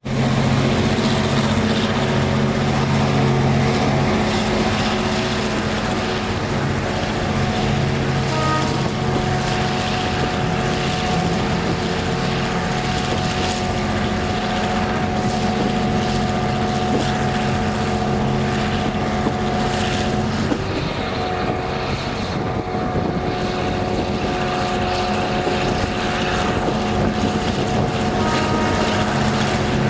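EMD 12-645E V12 two-stroke diesel of a G22CU locomotive running steadily as the train travels, a constant engine drone whose note shifts about twenty seconds in.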